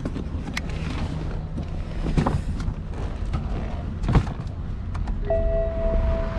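Sounds of a car with a low steady rumble underneath, broken by a few sharp knocks like doors or handling. Near the end a steady electronic chime tone sounds.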